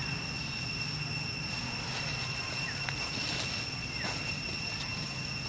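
Outdoor ambience: a continuous high-pitched steady drone over a low steady hum, with a few faint short chirps.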